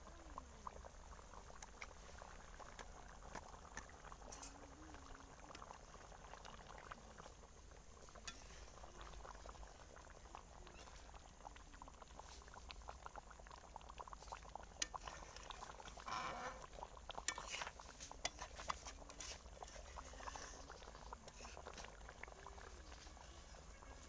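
Rohu fish curry simmering in a pan: faint, steady bubbling with a crackle of small pops, briefly louder about two-thirds of the way through.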